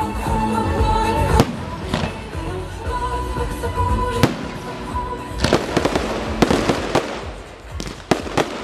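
Fireworks shells bursting with sharp bangs, single ones at first and then a quick run of them in the middle and again near the end, over music with long held notes.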